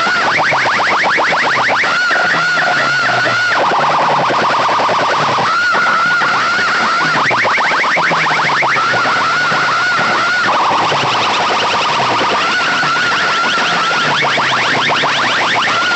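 Electronic siren effects played very loud through a large loudspeaker sound system. A warbling alarm tone alternates every second or two with runs of rapid rising chirps, over a repeating stepped bass line.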